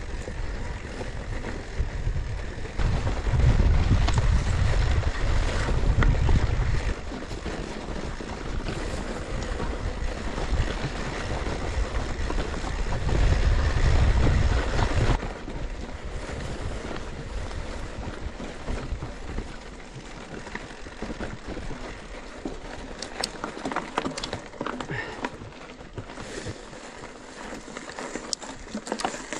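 Wind buffeting the microphone of a mountain biker's camera, in two heavy rumbling gusts, over the steady noise of the bike moving along a narrow trail. The second half is quieter, with scattered sharp ticks and rustles.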